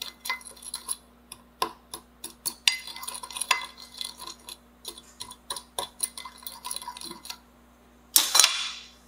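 A metal measuring spoon stirring dry spices in a small glass bowl: quick, irregular clinks and scrapes of metal on glass, which stop about seven seconds in. A short, louder burst of noise follows near the end.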